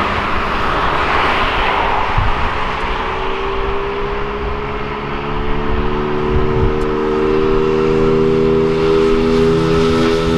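Jet aircraft engines running loud and steady, a broad roar. About three seconds in, a set of steady droning tones joins it and grows stronger toward the end.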